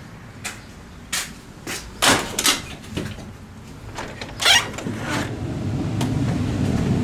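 A metal-framed screen door and a wooden front door being opened: latch clicks, rattles and knocks, the loudest about two seconds in, and a brief scraping sweep about four and a half seconds in. A steady low hum comes up in the last two seconds.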